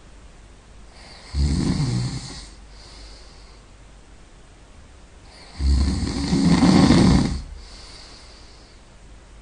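A person snoring really loud: two long, rough snores about four seconds apart, the second longer, with softer breathing in between.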